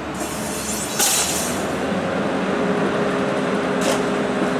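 A Caterpillar scrapyard material handler with an orange-peel grapple runs close by as it handles scrap. There is a hiss, then a sharp clank about a second in, then a steady hum.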